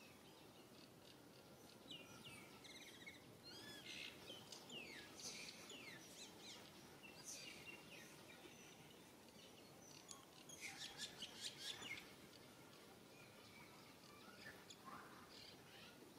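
Faint birds chirping over a low outdoor hiss, in flurries of quick high chirps and sweeps, busiest a little past the middle.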